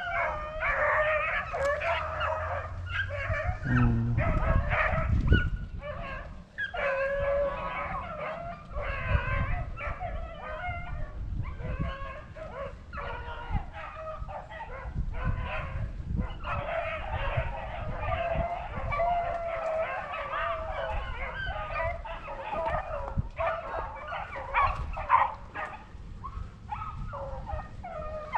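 Pack of rabbit hounds baying together, many voices overlapping with no let-up, the sound of the dogs running a rabbit. A low thump comes about four seconds in.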